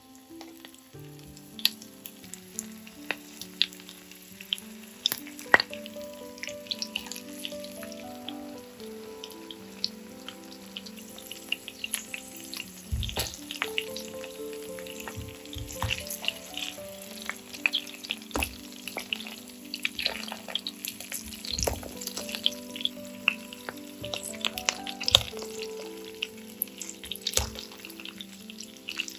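Zucchini slices frying in olive oil in a stainless steel pan: a steady sizzle dotted with crackling pops. In the second half come a few low knocks as a fork turns the slices over in the pan.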